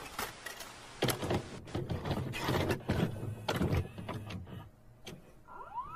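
A run of mechanical clicks and clunks over a low motor whirr, like a small machine working. Near the end a tone glides upward and then holds steady.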